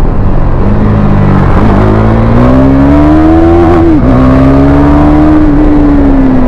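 KTM 390 Duke's single-cylinder engine pulling hard under acceleration. The revs climb, drop sharply at an upshift about four seconds in, then hold and ease off slightly near the end.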